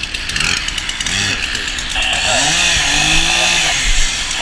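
A firefighter's gas-powered ventilation chainsaw starting up and running, revved up and down a couple of times.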